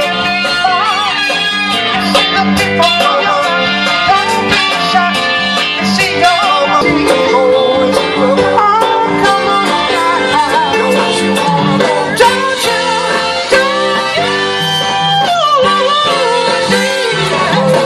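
Live band playing a Motown-style song: a singer's voice over guitar and drums.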